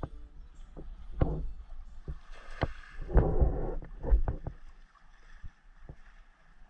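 Shallow river water splashing and sloshing around a wading fisherman pulling in a cast net, with scattered knocks and clatter. It is busiest in the first four seconds, then quietens to a few faint clicks.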